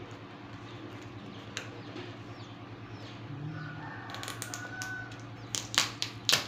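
Scissors snipping through the paper and tape of a postal package, several sharp cuts close together near the end, over a steady low hum. A faint drawn-out call sounds in the background about halfway through.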